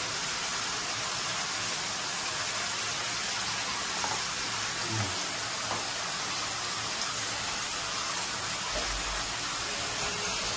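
Water running steadily in a bathroom, a continuous even hiss with no breaks.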